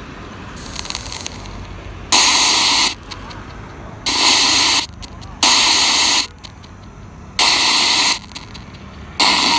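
FCD Mark IV spirit box sweeping, its speaker giving short bursts of loud radio static that cut in and out abruptly, about one every one and a half to two seconds. A steady low rumble runs underneath. The uploader's caption says the box's battery is running down.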